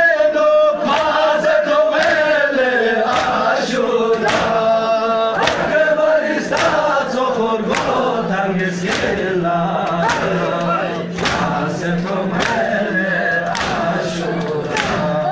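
A crowd of men chanting a Balti noha together, with regular sharp slaps of palms on bare chests (matam) keeping the beat.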